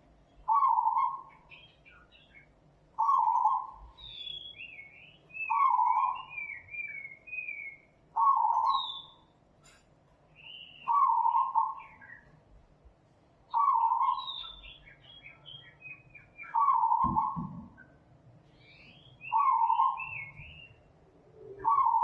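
Birds calling: one bird repeats a short, mid-pitched call steadily about every two and a half seconds, while another chirps and warbles between its calls.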